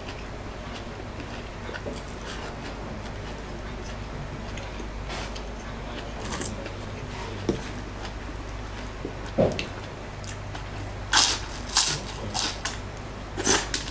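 Close-up eating sounds: chewing and biting into crispy fried lumpia shanghai, with a few sharp crunches in the last few seconds.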